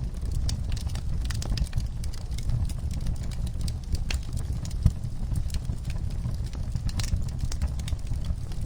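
Wood fire in a fireplace crackling: irregular snaps and pops over a low rumble of the flames, with one sharper pop about halfway through.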